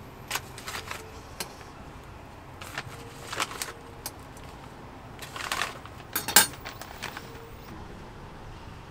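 Scattered metal clinks and clatter of cooking tools and baking molds at an egg-bread stall, with the sharpest clacks about six seconds in.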